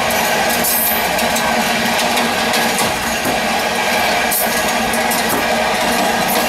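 Moving train heard through the open chute of its toilet: a loud, steady noise of wheels running on the rails, with a constant hum and scattered clicks and rattles.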